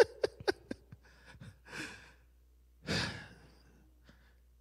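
A person sighs, a heavy exhale about three seconds in, after a few short, sharp sounds in the first second.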